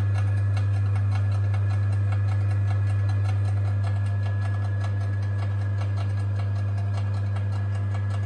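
Myford ML7 lathe's electric motor running with a steady low hum and a light, even ticking.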